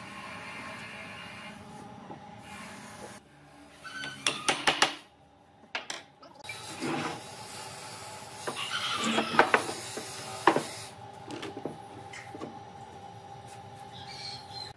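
Workshop handling sounds as railway-sleeper timber pieces are fitted together: a few sharp wooden knocks and clatters over a steady background hum.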